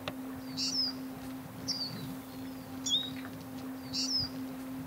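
A small bird calling repeatedly, a short high note that drops in pitch about once a second, over a steady low hum.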